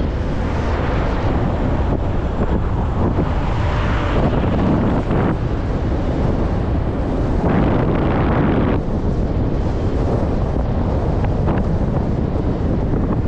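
Wind buffeting the microphone of a moving rider: a loud, steady rumbling rush. It swells twice, around four seconds in and again near eight seconds.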